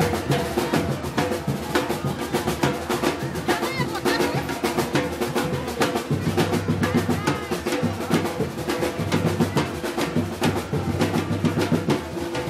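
Chinelo carnival brass band playing: snare drum rolls and bass drum keep a dense, driving beat under sustained horn notes and a low bass line.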